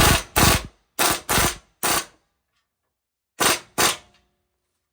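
Impact wrench hammering in short trigger bursts, five in quick succession and then two more after a pause, running a nut down on the new steering linkage.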